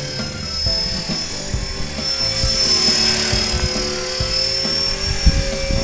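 Blade 400 electric RC helicopter in flight: the steady whine of its electric motor and drive gears over the hum of the rotor blades, drifting a little in pitch. The sound swells around the middle as the helicopter manoeuvres. Irregular low thumps run underneath.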